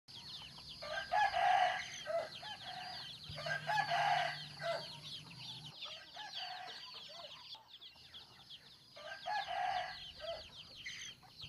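Village chickens: a rooster crowing several times, each crow about a second long, with clucking under a constant high peeping chatter.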